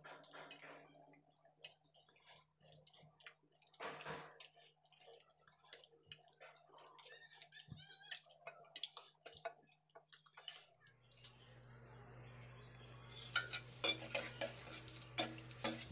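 A fork clicks and scrapes in a bowl while raw chicken pieces are mixed with spice powders. About eleven seconds in, a steady low hum starts, and a metal spoon scrapes and clinks in a steel pot as bay leaves are stirred in oil, louder and denser near the end.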